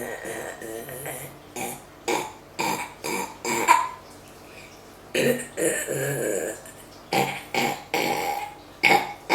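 A person burping over and over on purpose: a quick run of short burps, a longer drawn-out burp about five seconds in, then another run of short ones.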